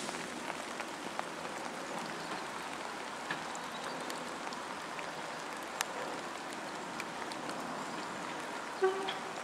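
Steady patter of rain, with scattered sharp drip ticks. A short pitched call sounds about a second before the end.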